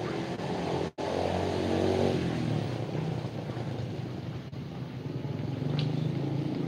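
A motorcycle engine running steadily at idle, with a brief cut-out in the audio just under a second in.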